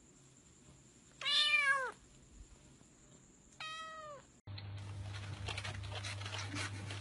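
Domestic cat meowing twice, each call rising then falling in pitch, the first louder and longer than the second. After that, a steady low hum with scattered rustling.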